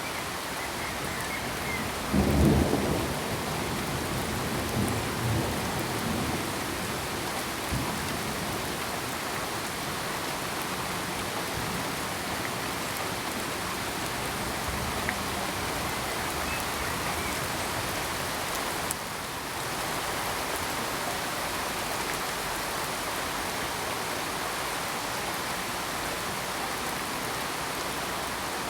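Steady rain falling. A low rumble of thunder rises about two seconds in, the loudest moment, and rolls on more softly for a few seconds.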